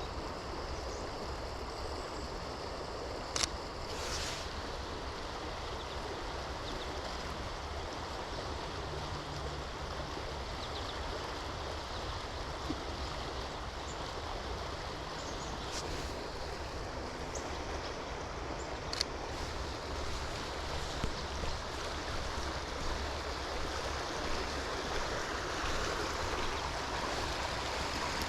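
Steady rush of a river's flowing water, with a few brief sharp ticks scattered through it.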